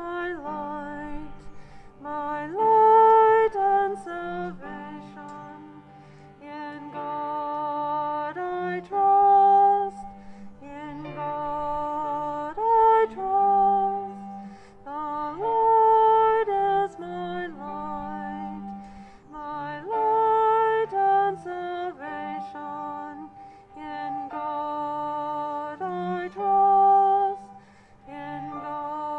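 Slow hymn-like music in long held notes from a small ensemble of violin, cello and piano, the cello holding a low line under the melody.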